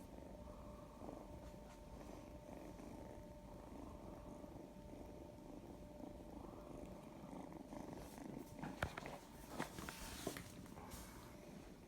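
Domestic cat purring softly, a low steady rumble, with a few brief clicks and rustles about two-thirds of the way through.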